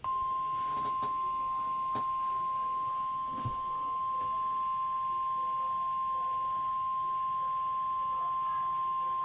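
Weather radio warning alarm tone: a single steady, unbroken 1050 Hz beep held for the whole stretch. It is the attention signal that comes before a broadcast severe weather warning, here a tornado warning.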